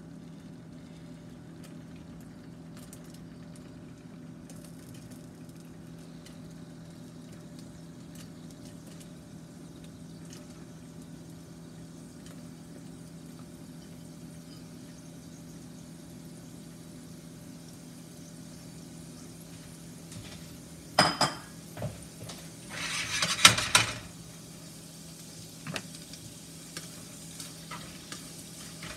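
A steady low hum, then two short, loud bursts of sizzling and scraping at a frying pan about 21 and 23 seconds in, as beaten eggs go into the hot pan over wilting kale, followed by a few light utensil clicks.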